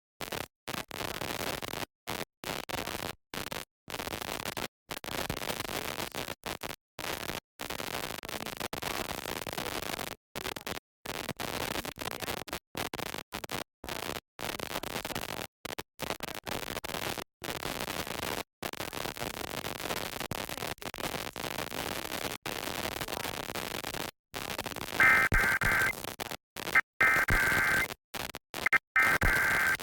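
Hissy radio static that keeps cutting out for moments at a time. Near the end come three loud, screechy data bursts of about a second each: an Emergency Alert System SAME header, sent three times to start a new alert.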